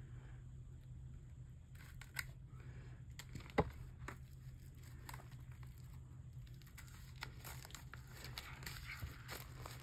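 Paper and plastic album packaging being handled and opened: crinkling and tearing with scattered small clicks, one sharp click about three and a half seconds in, and busier crinkling near the end.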